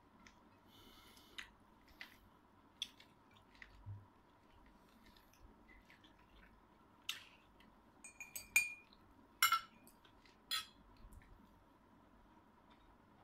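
Light clinks and taps of tableware being handled: a spoon, ceramic plate and mug. They come scattered at first, with a cluster of louder clinks from about seven to eleven seconds in.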